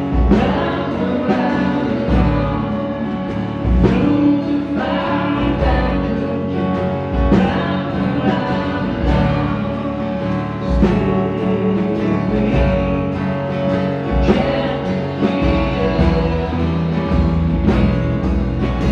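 A live band playing a song with a singing voice over guitar and drums.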